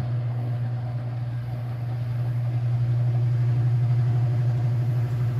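Haier HLP24E portable washing machine's motor starting a faster spin: a steady low hum that comes on suddenly and grows louder over the first few seconds as the drum spins up, then holds steady.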